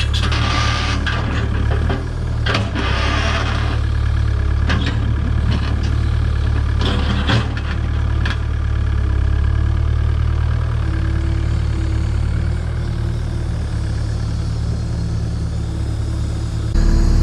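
Takeuchi TB285 excavator's diesel engine running steadily under hydraulic work, with rip rap stones knocking and scraping in the bucket, several sharp knocks in the first eight seconds. The engine note steps up just before the end.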